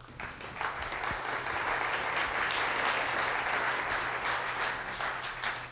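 Audience applauding, many hands clapping at once; it builds over the first couple of seconds and starts to die away near the end.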